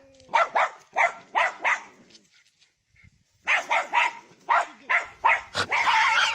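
A dog barking in quick runs: about five short barks, a pause of about a second and a half, then a longer, faster string of barks.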